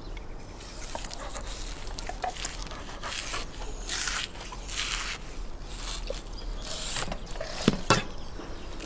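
Large kitchen knife slicing through a raw wild boar leg, several drawn rasping strokes through the meat, then two sharp thumps near the end.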